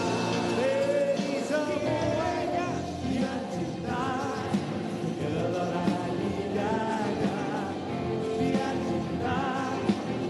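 Live pop band music with vocal harmonies over sustained keyboard and band accompaniment.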